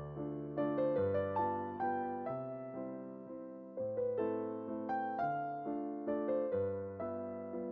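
Background piano music: a slow, gentle melody of struck, decaying notes over soft low chords.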